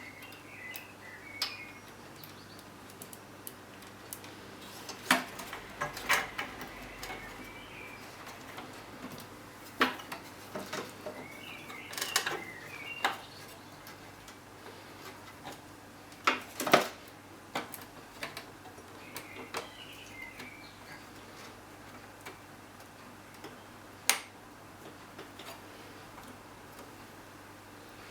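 Irregular plastic clicks and taps of cable connectors being handled and pushed onto motherboard headers inside a PC case, with a low steady hum underneath.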